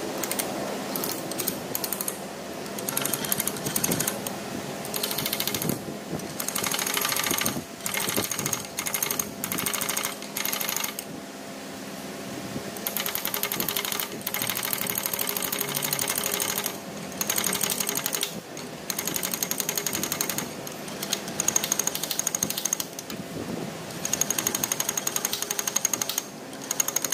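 Power impact tool hammering rapidly in repeated bursts, each a second to a few seconds long, with short pauses between.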